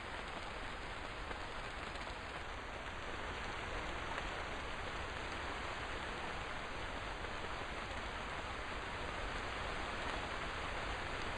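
Steady rain falling, an even hiss of many drops with no single drop standing out.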